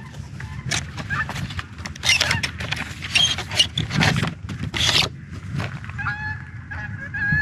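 Cardboard packaging being handled as an inner tray is slid out of its box sleeve, a run of rustles and scrapes in the middle. Geese honk repeatedly near the end.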